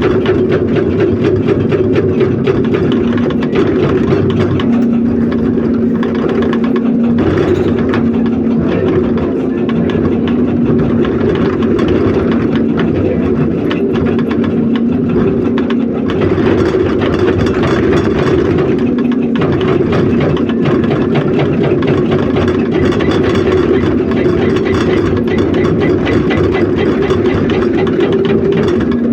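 Heavy excavator's diesel engine running steadily at a constant pitch.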